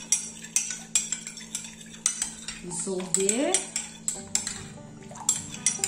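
Metal spoon stirring cornstarch into water in a glass measuring cup, clinking against the glass about three times a second to dissolve the starch.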